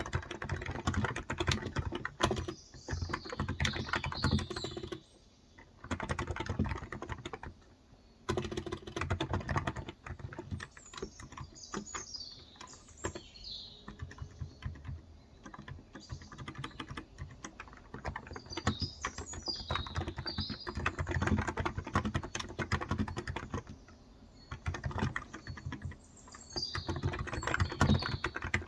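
Fast typing on a Cox Endeavor tenkeyless keyboard with electro-capacitive (non-contact) 35 g switches, in bursts of rapid key clicks broken by brief pauses. Birds chirp in the background in about four short bouts.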